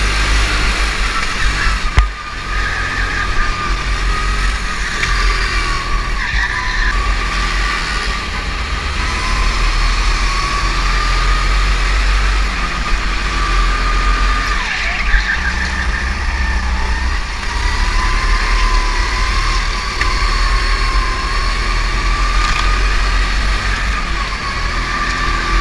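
Go-kart motor running hard on track, heard from on board, its pitch rising and falling as the kart speeds up and slows through the corners, over a steady low rumble. One sharp knock about two seconds in.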